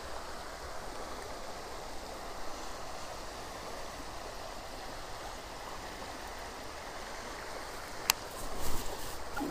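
Shallow river water running steadily over rocks, an even rushing, with a sharp click about eight seconds in.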